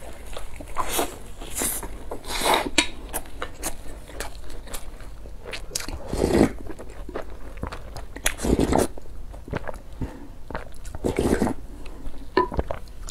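Close-miked eating: crisp bites and chewing of fried flatbread, with short clicks and crackles. About 6, 8.5 and 11 seconds in come three longer, louder slurps of soup from a wooden spoon.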